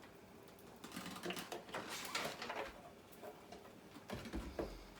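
Cooking sounds at the stove: irregular scraping, clinking and knocking of a utensil and pot as oil is worked into heated curry spices.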